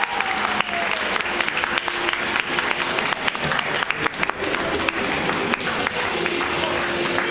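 Audience applauding in a hall: steady, dense clapping.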